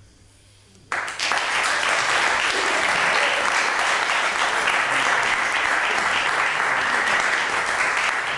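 Audience applause that breaks out suddenly about a second in, after a moment of near quiet, and continues steadily.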